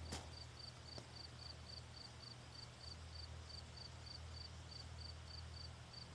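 A cricket chirping, faint and evenly paced at about four high chirps a second, over a low steady hum.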